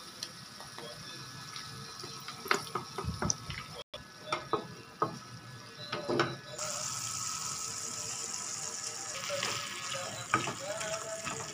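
Spatula scraping and knocking against a nonstick pan as minced chicken and sauces are stirred. From about two-thirds of the way through, a steady sizzling hiss of stir-frying comes in under the scrapes.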